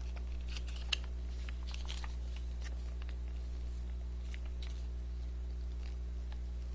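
Faint wet clicks and squishes of a person sucking tangerine konjac jelly from a spout pouch while squeezing it, with one sharper click about a second in, over a steady low hum.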